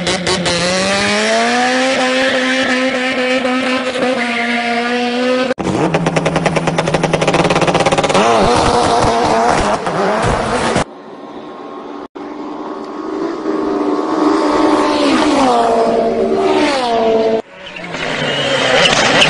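Rally car engine revving hard and climbing in pitch through the gears, dropping back at each gear change. The sound comes in several short cuts, with a rapid pulsing stretch in the middle and tyre squeal near the end.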